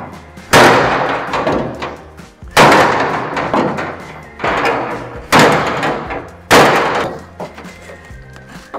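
Five heavy hammer blows on the sheet-steel hood of a 1940 Willys, at uneven intervals, each ringing out for about a second as the dented panel is knocked back into shape.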